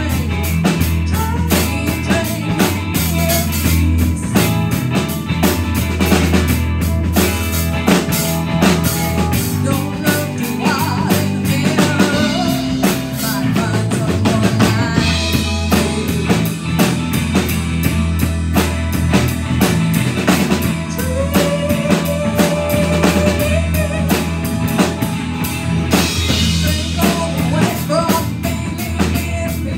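Live rock band playing an instrumental passage: electric guitar, electric bass, keyboard and a drum kit keeping a steady beat, with a sliding melodic note about two-thirds of the way through.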